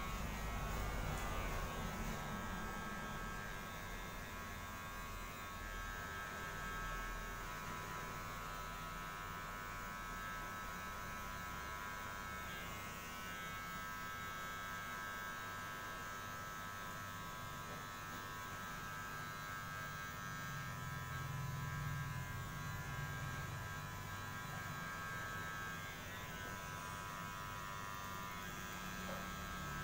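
Steady buzzing hum of a small battery-powered vibrating massage pen held against the eye area.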